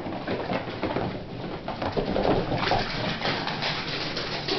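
Italian Greyhounds whining and crooning in excitement.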